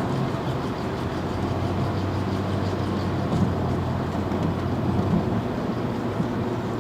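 V8 engine running steadily through an exhaust with a hole in it, giving a constant low, deep drone: the sound of an exhaust leak.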